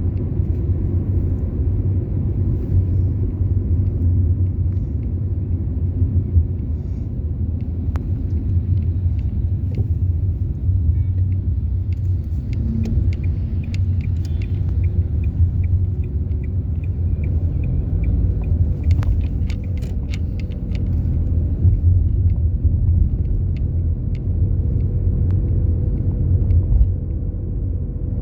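A car driving along a road: a steady low rumble of engine and tyre noise, with a few faint light clicks about halfway through.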